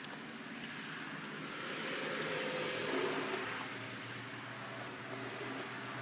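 Spark plug wrench being turned in the plug well of an Opel 1.4 engine, giving a few light metal clicks. Under them is a background rush that swells around the middle and eases off.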